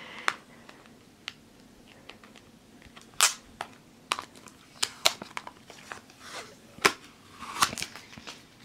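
A stack of Topps trading cards being handled and flipped through, cards sliding against each other with a series of irregular sharp snaps and taps of card edges.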